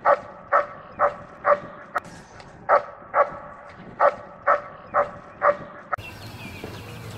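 A dog barking in a steady run, about two barks a second with brief gaps, stopping about six seconds in, where it gives way to steady open-air background noise.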